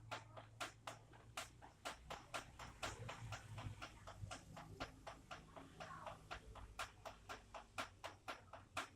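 Rainwater drops dripping and tapping, an irregular patter of sharp little ticks, several a second.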